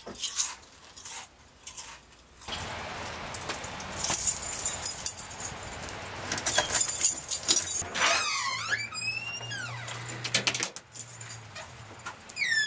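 Keys jangling and turning in a door lock, in two bouts of metallic clatter. Then, about eight seconds in, a door hinge squeaks for a couple of seconds as the door swings open, a wavering high squeal.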